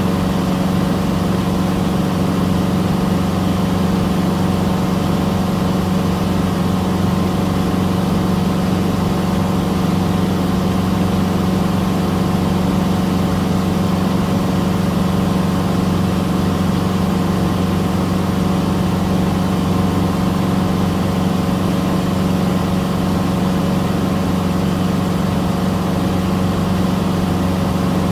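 Cessna 150's four-cylinder Continental O-200 engine and propeller running steadily in cruise flight, a constant drone heard inside the cabin.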